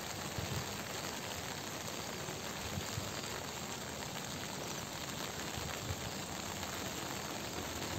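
Steady, even outdoor hiss, with faint low rumbles now and then.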